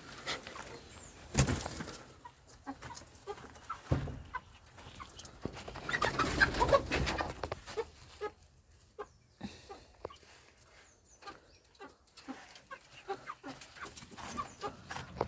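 Chickens clucking in short, scattered calls, with a sharp knock about a second and a half in and a louder flurry of sound about six to seven seconds in.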